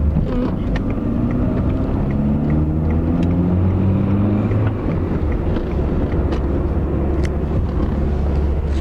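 Car engine and road noise heard from inside the cabin while driving. The engine note climbs for about four and a half seconds, dips briefly, then runs steady, with scattered light clicks.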